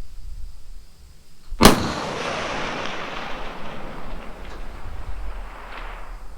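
A single rifle shot about a second and a half in, followed by a long rolling echo that fades away over several seconds.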